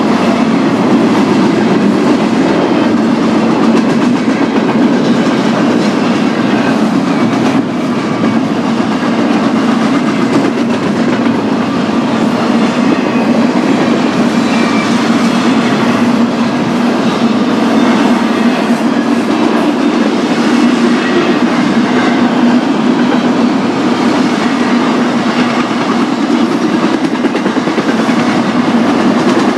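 Double-stack intermodal freight train cars rolling past: a loud, steady rumble of steel wheels on the rails.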